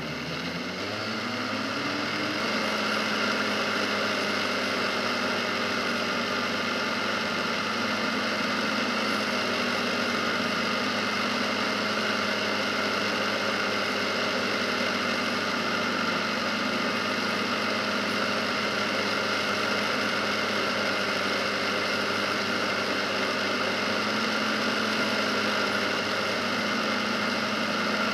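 Polaris Sportsman 570 ATV's single-cylinder engine pulling up to speed, its pitch climbing over the first two seconds, then running at a steady cruise over a haze of wind and tyre noise.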